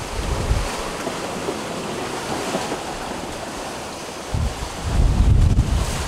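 Rushing of rough sea water along the hull of a sailing trimaran under way, with wind buffeting the microphone in heavy gusts near the start and again from about four seconds in.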